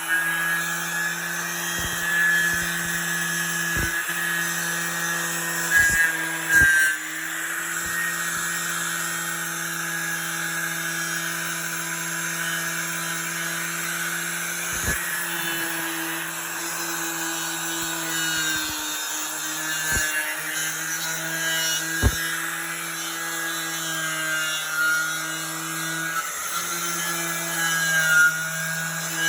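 Milwaukee 11-amp 4-1/2-inch angle grinder running steadily with a twisted-knot wire wheel, scouring paint and rust off a metal door, with a few sharp ticks along the way.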